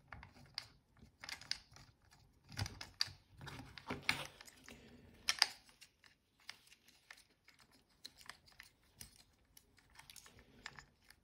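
Handling noise as a round patch (sandwich) antenna is screwed onto the receiver module's antenna connector on FPV goggles: scattered light clicks and small scrapes of plastic and metal, with a few louder clicks in the first half.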